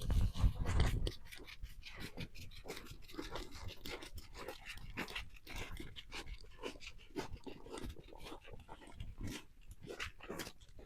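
Footsteps crunching on snow, a quick, irregular run of short crunches, after a loud low rumble in the first second.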